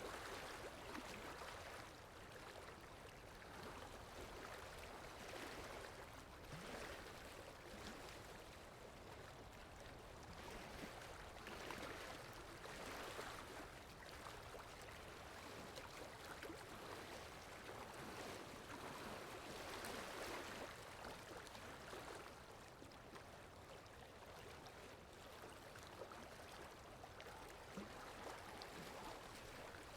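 Faint sea water washing and lapping: a steady rushing hiss that swells and eases every few seconds.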